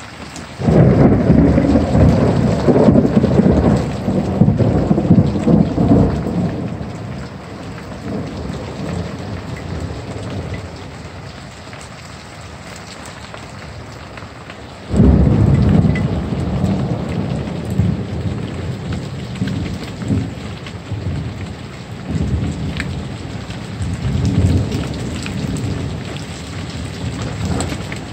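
Thunder rumbling twice over steady heavy rain. The first peal breaks suddenly about half a second in and rolls on for several seconds. The second comes about halfway through and rumbles on in waves, fading out near the end.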